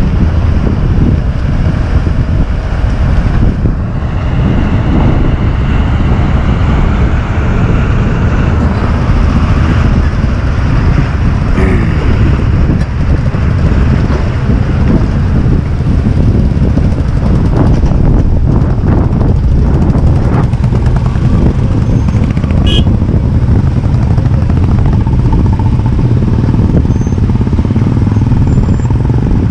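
Several motorcycles running at low speed, their engines going steadily as they crawl past one after another over a rough, rocky road. There is a single sharp click about three quarters of the way through.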